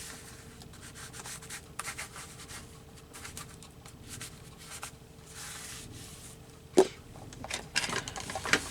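Paper being rubbed and smoothed down by hand on a collage page, a run of soft scratchy strokes with a sharp tap about seven seconds in and busier rubbing near the end.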